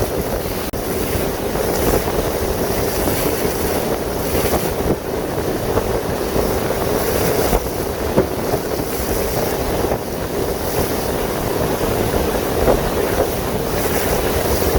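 Steady drone of a passenger boat under way on a lake, with wind buffeting the microphone.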